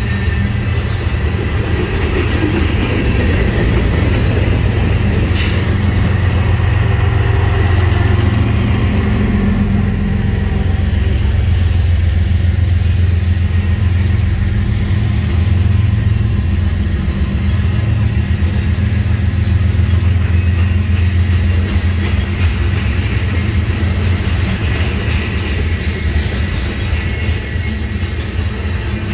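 Freight train of tank cars and covered hoppers rolling past close by: a steady, loud low rumble of steel wheels on the rails.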